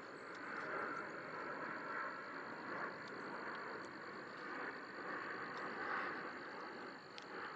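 Airplane passing overhead: a faint, steady rushing noise that swells and fades slowly.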